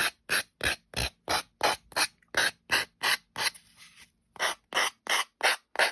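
Nail file (emery board) rasping in quick back-and-forth strokes, about three a second, along the edge of a decoupaged ornament, sanding off excess napkin. There is a short softer pause a little past the middle.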